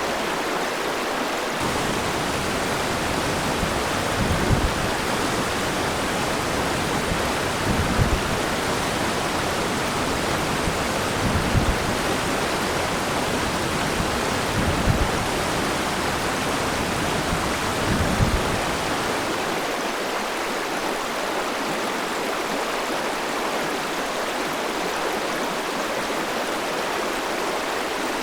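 River water rushing steadily over stones. For much of the time a low rumble runs beneath it, swelling briefly about every three and a half seconds, five times in all.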